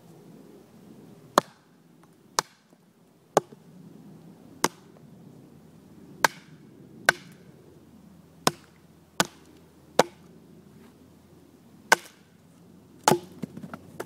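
Ka-Bar Large Heavy Bowie knife chopping into the end of an upright log to split it: about a dozen sharp chops, roughly one a second, with a few lighter hits close together near the end.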